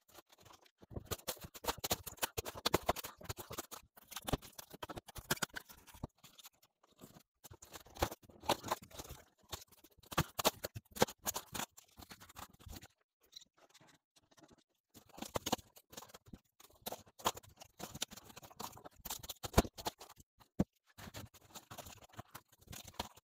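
Polystyrene foam scenery being pried up and broken apart by hand: spells of squeaky, scratchy crackling and crunching, with short pauses between.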